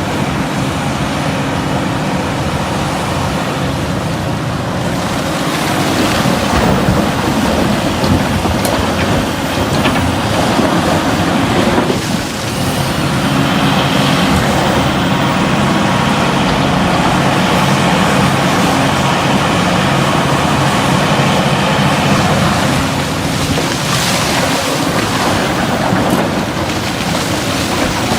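The diesel engine of a Caterpillar 352F excavator running steadily at working load while it loads coal, with a brief dip in loudness about twelve seconds in.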